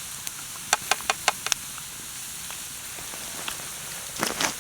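Chips frying in hot oil in a pan: a steady sizzle, with a quick run of sharp crackles about a second in and a few more near the end.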